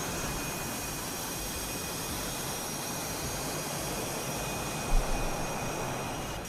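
F/A-18 fighter jets' engines running on the flight line: a steady rushing noise with a high, steady whine over it. A single thump about five seconds in.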